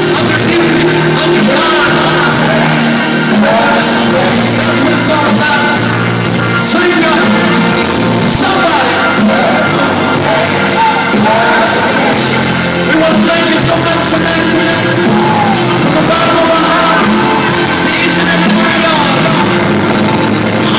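Loud live rock music, amplified through an arena sound system, with the audience singing along.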